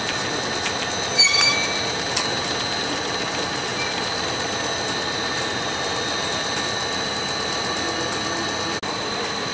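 Compound air bubble film production machine running: a steady mechanical hum and hiss with a constant high whine, and a brief squeak and a couple of sharp clicks about a second in.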